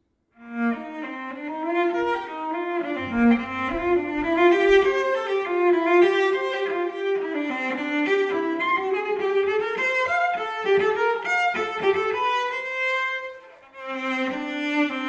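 Unaccompanied cello bowing a quick, busy line of notes that starts about half a second in, with a short break near the end before the playing resumes.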